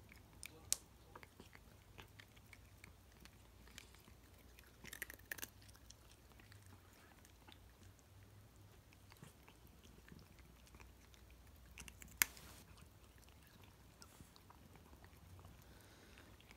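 A cat chewing and crunching a small dry treat held in fingers: faint, scattered crunches, a little cluster about five seconds in and one sharp, louder crunch about twelve seconds in.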